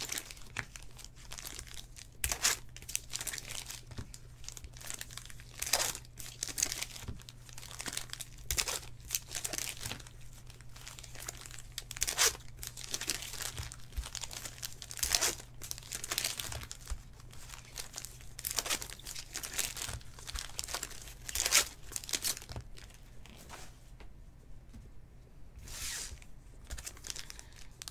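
Trading card pack wrappers being torn open and crinkled while the cards are handled, in short irregular rustling bursts over a faint steady low hum.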